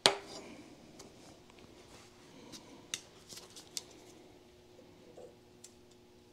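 A sharp metallic clack right at the start, then scattered light clicks and ticks of hand tools, with pliers taking hold of a cotter pin on a steel shift rail near the end.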